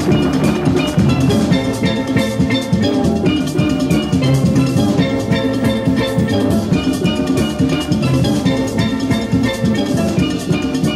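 Background music with a steady drum beat and a pitched melody.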